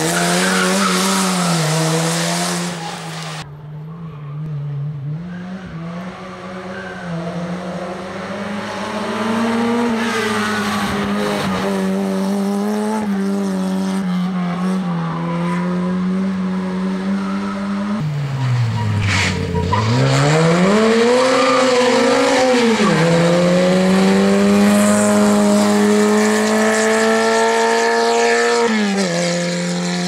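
Skoda 130 rally car's rear-mounted 1.3-litre four-cylinder engine running hard at high revs through several passes. Its pitch rises through the gears, drops sharply on braking and climbs again under acceleration.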